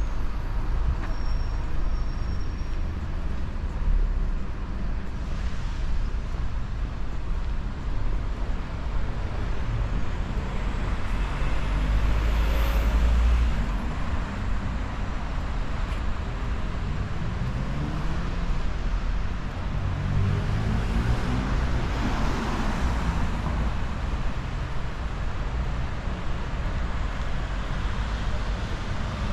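City street traffic noise, a steady low rumble of road traffic, with vehicles passing twice, their engine note gliding in pitch as they go by.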